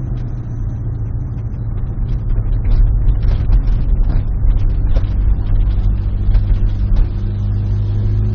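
Car with a loud exhaust running as it drives, a steady low engine drone that gets louder about two and a half seconds in, with a scatter of short crackles through the middle.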